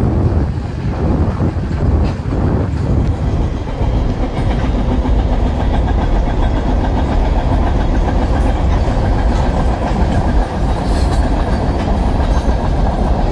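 Union Pacific weed sprayer train's maintenance-of-way cars rolling past close by, a steady rumble of wheels on rail with some clatter.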